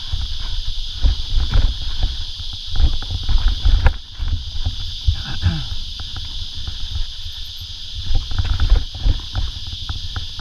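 Mountain bike rattling and knocking over rocky singletrack: many short clatters and knocks from the bike and trail, over a low rumble of wind on the bike-mounted camera microphone and a steady high hiss.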